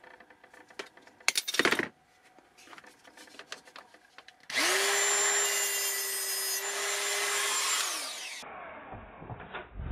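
Handheld rotary tool with an abrasive cut-off wheel cutting through a thin steel rod, after a few light handling clicks. It starts about halfway in and runs for about four seconds as a steady high whine with grinding hiss, then winds down near the end.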